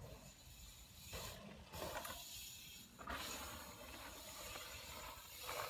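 Bicycle freewheel hub ticking as the rider coasts on a dirt track, getting louder about three seconds in.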